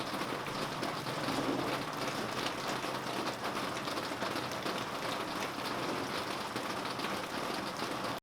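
Steady rain falling on surfaces: an even hiss of rain with many small drops pattering.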